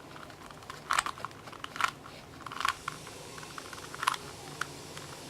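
Plastic Rubik's Cube (3x3x3) layers being turned by hand, a series of sharp, irregularly spaced clicks and clacks as an algorithm is worked through.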